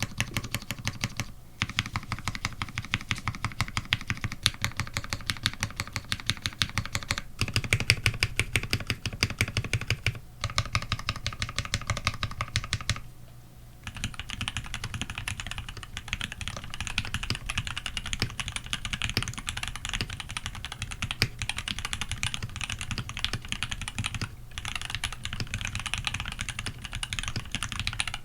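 Typing on a TX87SE custom mechanical keyboard with a brass plate, lubed Tealios v2 linear switches in Cherry top housings and GMK keycaps: rapid, continuous keystrokes broken by a few short pauses, the longest about 13 seconds in.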